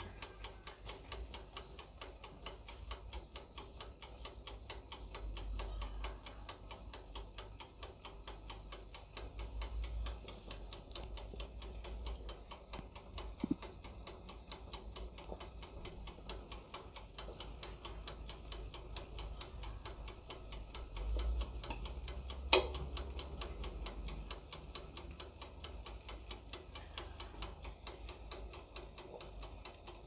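Small oven's mechanical timer ticking rapidly and evenly as it runs down. One sharper click stands out about two-thirds of the way through.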